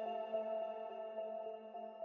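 Soft background music of held, ringing notes, slowly fading out.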